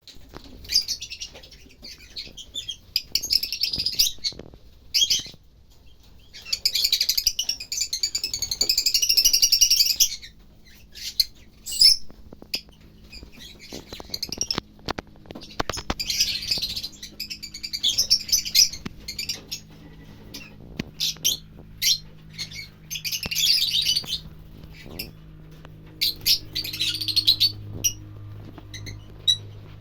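A group of lovebirds, rosy-faced and Fischer's, chattering in shrill bursts of high chirps and squawks that last a few seconds each with short pauses between, with scattered sharp clicks.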